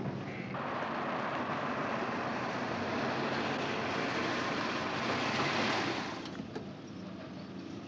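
Car driving on a dirt quarry road: a steady rush of tyre and engine noise that dies down about six seconds in.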